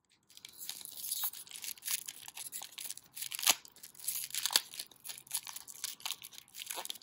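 Pokémon booster pack wrapper being torn open slowly by hand, a run of crinkling, crackling tears that starts about half a second in.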